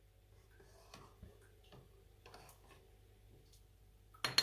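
Faint ticks and light scrapes of a spoon working in a bowl, skimming foam off the cooled melted soap mixture, with two sharp clinks of utensil on dish near the end.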